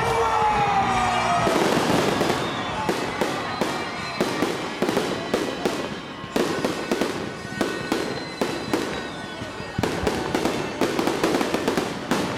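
Fireworks display: aerial shells bursting in an irregular run of sharp bangs and crackles, several a second, starting about a second and a half in.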